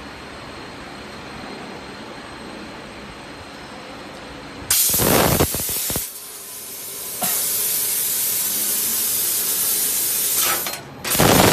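1000-watt fiber laser tube-cutting machine running with a steady low hum, then loud hissing from the cutting head's gas jet. The hiss comes as a burst of about a second, then a longer stretch of three to four seconds, then starts again right at the end.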